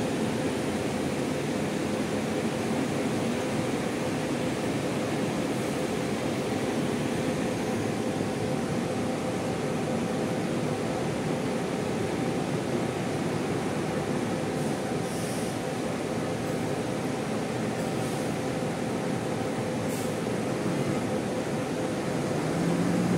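Idling diesel coach buses with their engines and air-conditioning units running: a steady, even drone with a faint steady whine on top.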